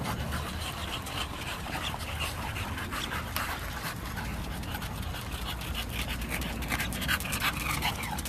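English bulldog panting as it trots on a leash, a quick run of short breathy puffs, with short ticks of steps on the pavement.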